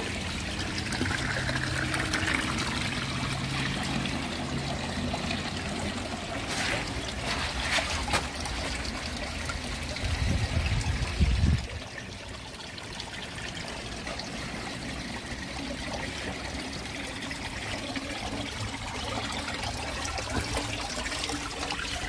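Small waterfall trickling over sandstone into shallow rock pools, a steady trickle, with a brief low rumble about ten seconds in.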